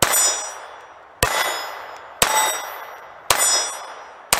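A Ruger LCP II .22 LR pistol fired five times, about one shot a second. Each shot is followed by steel plate targets ringing and fading over about a second.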